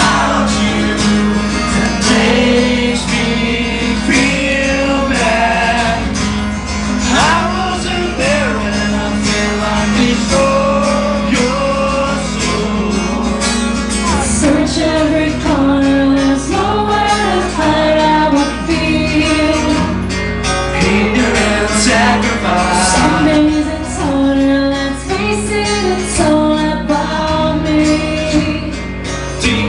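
Live acoustic rock performance: two acoustic guitars playing under female and male vocals singing into microphones.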